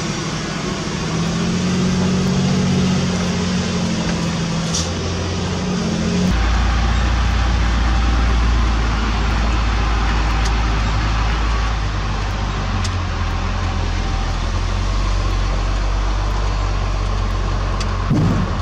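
Heavy diesel engine running steadily. About six seconds in it changes abruptly to a deeper, louder low drone, and a short thump comes near the end.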